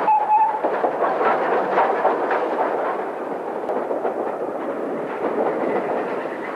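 Steam locomotive moving slowly, its exhaust beats over a steady hiss and rumble, with a short whistle note right at the start.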